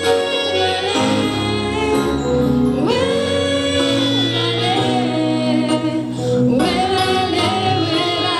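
Gospel music: voices singing long held phrases over a steady instrumental accompaniment.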